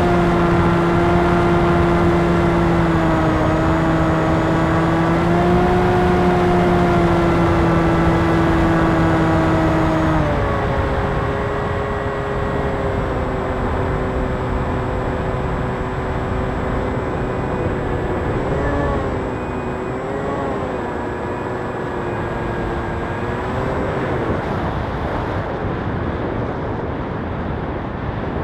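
Electric brushless motor and propeller of an FPV RC plane running, a steady whine over rushing air. About ten seconds in the throttle is cut back and the pitch drops, and later it wavers up and down a few times.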